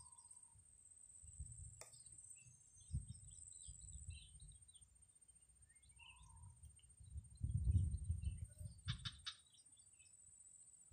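Faint bird chirps and two short whistles, one at the start and one about six seconds in, over low rumbling outdoor noise that swells about three quarters of the way through. A quick run of sharp chirps follows, and a thin steady high tone runs underneath throughout.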